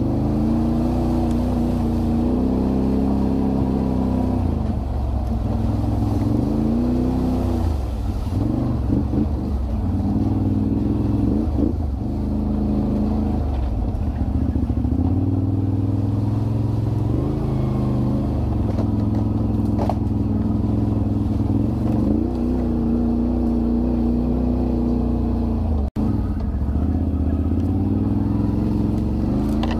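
Can-Am Renegade 1000 ATV's V-twin engine being ridden, its pitch rising and falling over and over as the throttle is worked.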